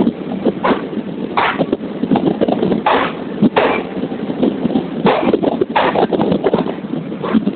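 Indian Railways express train running on the rails as it pulls out, its coach wheels and bogies clattering with many irregular knocks over the track joints, over a steady rumbling rush of running noise.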